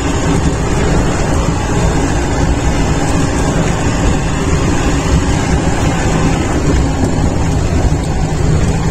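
Land Rover engine running as it climbs a broken, boulder-strewn mountain road, with steady loud rumble and road noise.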